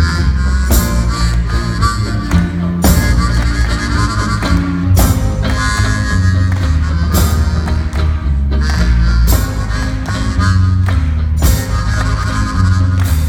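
Live band playing an instrumental break, led by a bass harmonica over sustained low bass notes and rippling plucked-string accompaniment, with a strong percussion hit about every two seconds.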